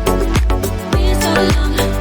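Background music with a steady dance beat: a regular kick drum with bass and a melodic line over it.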